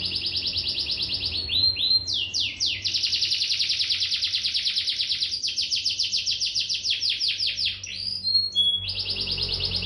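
Canary singing in long, fast trills: rolls of rapidly repeated high notes lasting several seconds each, with short breaks and a brief held whistle note near the end.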